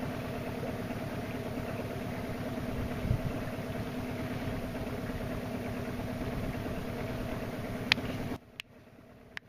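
A fishing boat's outboard motor idles steadily with an even hum, then stops abruptly about eight seconds in. There is a dull knock about three seconds in, and a few sharp clicks near the end.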